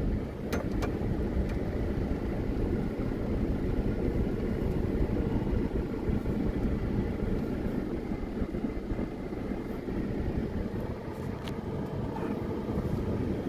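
Car rolling slowly over a dirt yard track, with a steady rumble of engine and tyres heard from inside the cabin and a few light clicks.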